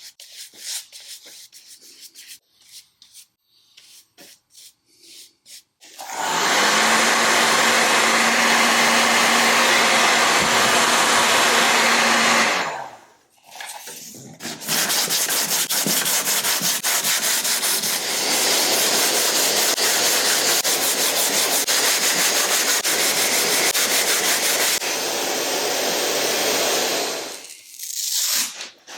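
Light scattered rubbing and scraping by hand, then a handheld electric power tool running in two long spells, the first about six seconds with a steady hum, the second about thirteen seconds with a fine fast buzz, stopping near the end.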